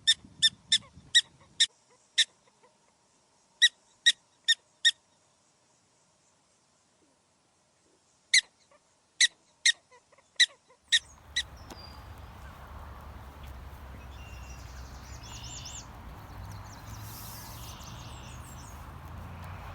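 A bird giving short, sharp, high calls in quick runs of four to six, with a few seconds' pause between runs. About eleven seconds in it gives way to a steady outdoor rumble with a few faint bird chirps.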